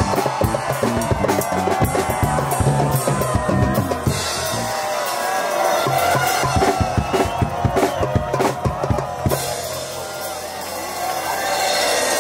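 Hip-hop dance music: a drum-kit beat over a bass line, playing loudly. The drums ease off for a couple of seconds near the end.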